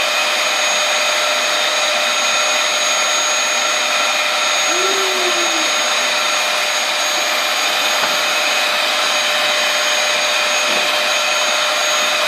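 Bagless canister vacuum cleaner running steadily: an even rush of air with a steady motor whine over it.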